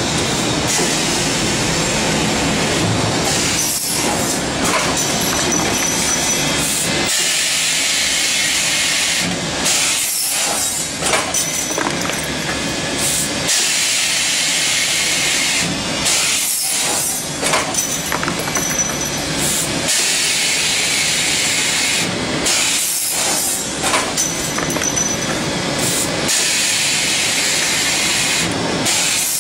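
Automatic capillary copper U-tube bending machine running, a loud steady hissing machine noise that drops out briefly every few seconds.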